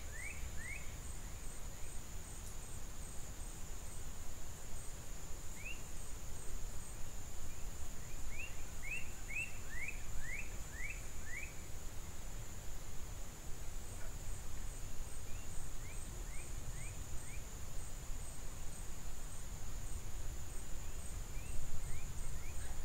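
Outdoor ambience: a steady high-pitched insect drone over a low rumble, with a bird calling in quick runs of short downward-slurred notes, near the start, from about eight to eleven seconds in, and again around fifteen seconds in.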